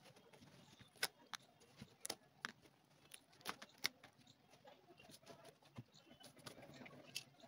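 Scattered short, sharp clicks and small snaps of brittle plastic trim being broken and picked off a worn leather boot, with the boot handled and fragments dropped on the work mat. The clicks come irregularly, several within the first four seconds and one more near the end.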